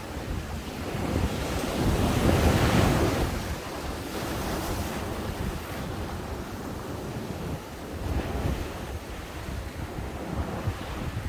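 Ocean waves breaking on a beach: one wave crashes loudly a couple of seconds in and then washes up the sand, with smaller waves later. Wind buffets the microphone.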